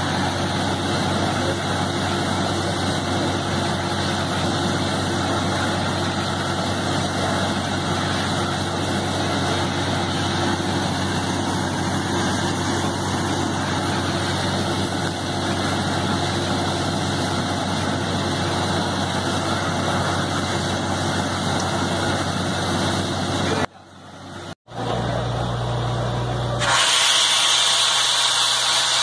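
Truck-mounted borewell drilling rig running: a steady engine and air-compressor drone under a dense rushing noise. After a brief break about three-quarters of the way through, a louder hissing rush as compressed air blows water and slurry out of the bore.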